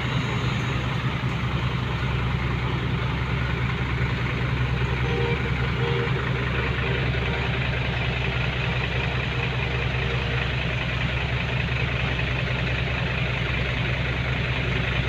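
Dump truck engine running steadily, a constant low drone with no change in speed.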